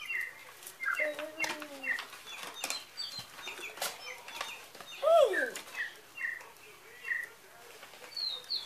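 Electronic DigiBird toy birds chirping and twittering in quick, short repeated notes, with a few longer sliding whistles, over light rustling of paper cards.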